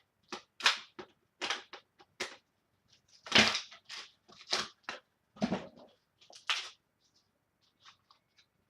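Packaging being handled and torn open during unpacking: irregular crinkling and tearing bursts, loudest about three and a half seconds in, then a few faint clicks near the end.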